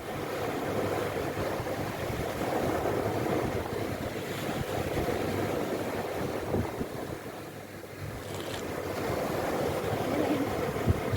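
Sea waves with wind buffeting the microphone, a steady rushing that swells and eases, dipping briefly about two-thirds of the way through.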